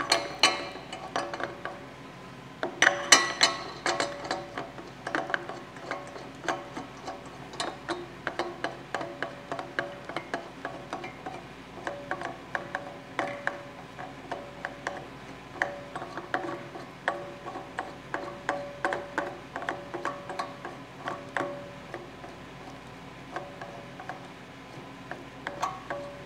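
The four door fasteners of a Frigomat FR260 slush machine being threaded on and hand-tightened: a long run of small clicks and ticks, about two a second, with a few louder knocks near the start.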